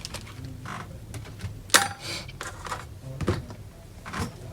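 Dell Inspiron 3542 laptop keyboard being lifted up out of its latches: scattered plastic clicks and taps, the sharpest about two seconds in.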